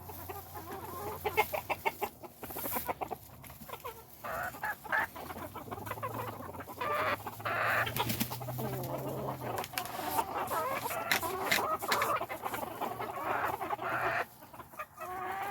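Backyard chickens clucking, with many short calls overlapping.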